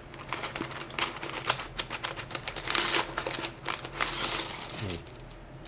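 Loose transparent plastic keycaps clicking and clattering against each other as they are handled and sorted, with a few short rustles of packaging.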